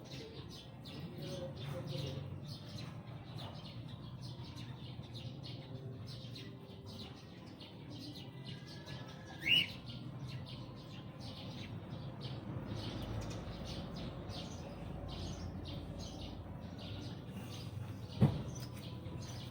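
Small birds chirping continuously in quick, high notes, with one louder short call about halfway through. A sharp knock sounds near the end.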